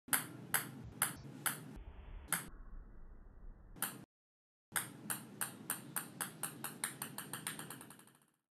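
Ping-pong ball bouncing on hard brick steps: sharp clicks about half a second apart, a short break about four seconds in, then a run of bounces that come faster and faster and fainter until the ball comes to rest.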